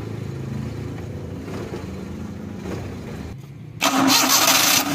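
Suzuki Mehran's three-cylinder petrol engine idling unevenly, hunting and missing, which the mechanic puts down to water in the MAP, coolant-temperature and intake-air-temperature sensor connectors. About four seconds in it becomes much louder and harsher, heard up close in the open engine bay.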